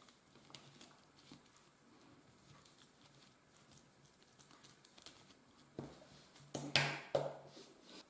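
Faint clicking and rattling of a plastic twisty puzzle with round, bead-like pieces as its layers are turned by hand. About six seconds in come a few louder handling knocks and a short low voice sound.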